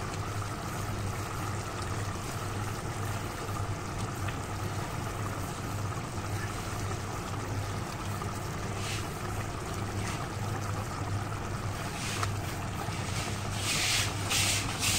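Tomato-tamarind fish curry gravy boiling in a pan on the stove: steady bubbling over a low hum, with a few short, louder splashes near the end as pieces of king fish go in.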